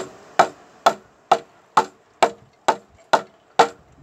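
A chisel being struck in a steady rhythm to cut a joint into a seasoned wooden beam: evenly paced sharp knocks, about two a second, each with a short ring.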